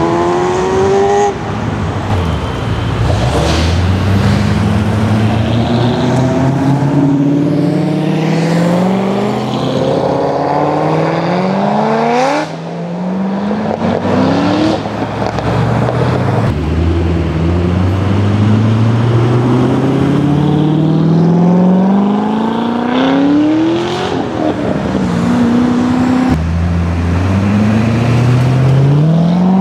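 Chevrolet Corvette V8 engines accelerating away one after another. Each engine note climbs and then drops sharply at a gear change, then climbs again.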